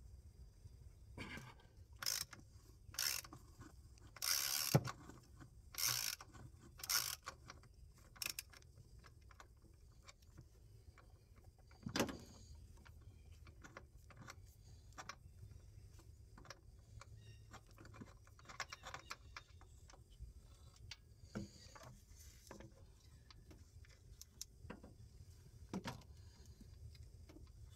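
Socket ratchet clicking in about six short runs over the first eight seconds as a 19 mm deep-well socket on an extension unscrews the PCV valve, then scattered light clicks and a single knock about twelve seconds in.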